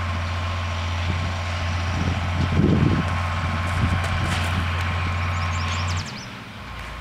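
Steady low mechanical hum, engine-like, that cuts off abruptly about six seconds in. A short rustle comes near the middle, and a few faint high chirps just before the hum stops.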